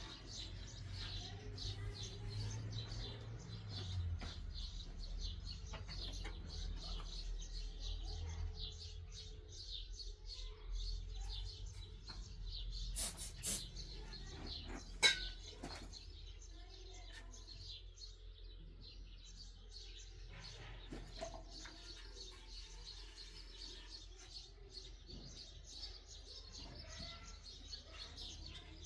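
Small birds chirping over and over, with a low steady rumble underneath and two sharp clicks a little past the middle.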